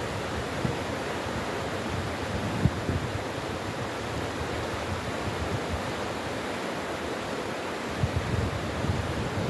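Mountain valley stream rushing in a steady, even wash of water noise, with a few brief low thumps about three seconds in and near the end.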